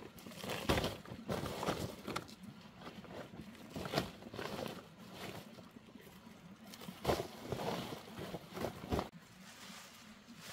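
Plastic sacks and bags rustling and crinkling as they are handled, with scattered sharp knocks and clatters; quieter near the end.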